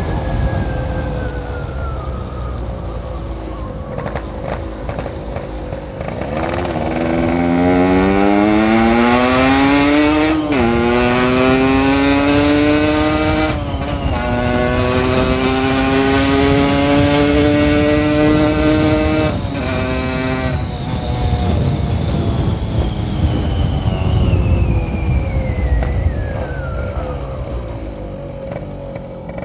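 Yamaha RX-King 135 cc single-cylinder two-stroke motorcycle being ridden. Its engine pitch falls at first, then climbs in three pulls through the gears, each broken by a brief dip at the shift, before it eases off and the pitch drops away slowly near the end.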